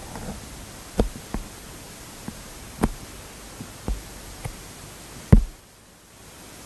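Scattered soft thumps and clicks, about six at irregular spacing, over a faint steady hiss: the phone being handled and its touchscreen tapped as a sticker is dragged, picked up by the phone's own microphone. The loudest thump comes a little over five seconds in.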